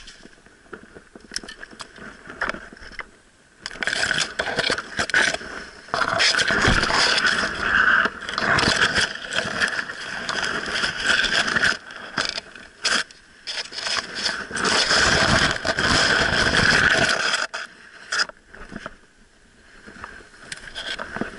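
Grass, dry stalks and twigs scraping and rustling against a body-worn action camera as the wearer pushes through dense undergrowth. The noise comes in loud stretches from about four seconds in and eases off near the end.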